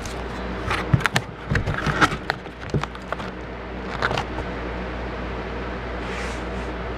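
A cardboard box's flaps being handled and pushed shut: a series of sharp taps, knocks and cardboard rustles over the first four seconds or so. After that there is only a steady low hum.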